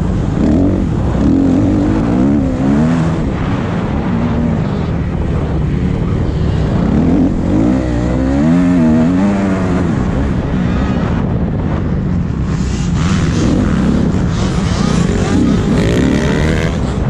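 Motocross dirt bike engine revving up and easing off several times, its pitch rising and falling with the throttle.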